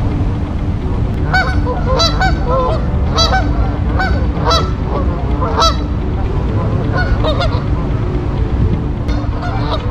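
Canada geese honking: a rapid run of short calls for several seconds, a pause, then more calls near the end, over a steady low rumble.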